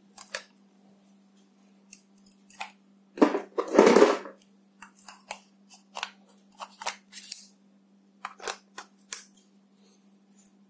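Clicks and scraping of camera lens mounts as a lens and mount adapter are twisted off an EOS M camera body and a speed booster adapter with the lens is fitted on. There are scattered sharp clicks, with a louder rattling scrape about three to four seconds in.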